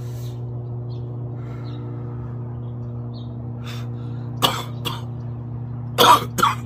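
A man clears his throat and coughs, a short burst about four and a half seconds in and a louder one near the end, over a steady low hum.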